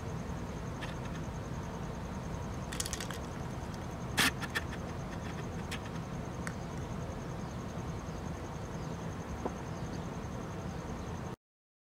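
Outdoor background ambience: a steady low rumble with a faint, continuous high-pitched pulsing whine. A few brief clicks sound over it, the loudest about four seconds in. The sound cuts off abruptly near the end.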